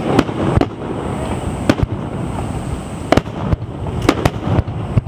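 Aerial fireworks shells bursting one after another at a fireworks display: about nine sharp bangs in five seconds over a continuous rumble of further bursts.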